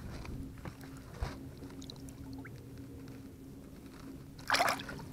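Seawater lapping and trickling around a hand holding a small bream in the water at the boat's side, to revive it before release. A short splash comes about four and a half seconds in.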